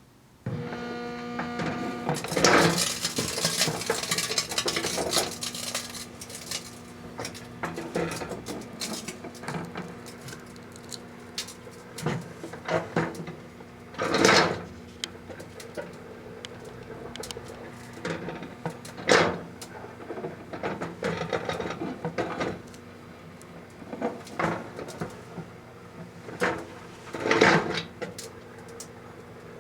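Proctor Silex microwave oven switching on about half a second in and running with a steady hum. Irregular crackling and popping bursts come from the jumbo plastic Christmas ornament heating inside it, a cluster about two seconds in and sharp pops scattered through the rest; the plastic ornament soon catches fire.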